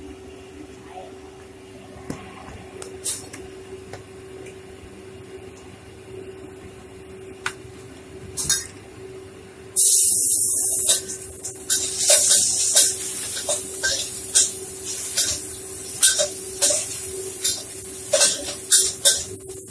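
Shredded ginger dropped into hot oil in a wok about ten seconds in: a sudden loud sizzle that carries on with crackling and the metal spatula scraping and knocking against the wok as it is stirred. Before that, only a steady low hum and a few clicks.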